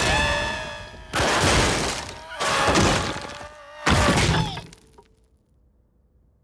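Cartoon slapstick sound effects: four loud crashing, breaking hits with wavering pitched tones over them, then it falls quiet about five seconds in.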